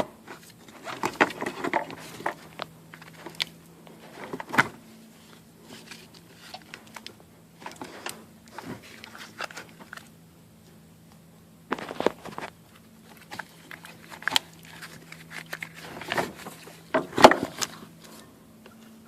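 Scattered knocks, clicks and rustles of hand work on a car's engine bay during an engine install, with the loudest clusters about a second in, near the middle and near the end, over a steady low hum.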